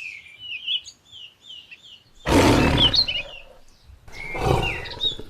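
A tiger roaring twice, each roar about a second long, with birds chirping throughout.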